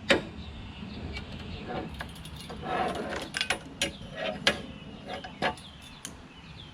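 Steel push-mower handle sections being worked apart and handled: a string of clicks, clanks and knocks of metal on metal, several with a short metallic ring.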